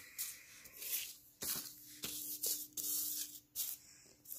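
Paper drawings rustling and sliding over a tile floor as they are handled, in several short, irregular bursts, with a faint steady hum underneath.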